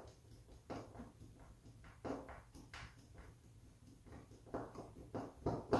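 Hand screwdriver turning a screw through a towel-ring bracket into a hollow-door anchor: faint, irregular clicks and scrapes with each twist.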